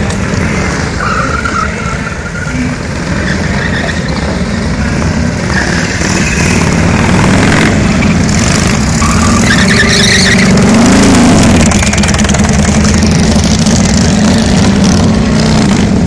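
Several Harley-Davidson police motorcycles running at low speed as they manoeuvre, a steady loud engine rumble, with one engine revving up and back down about eleven seconds in.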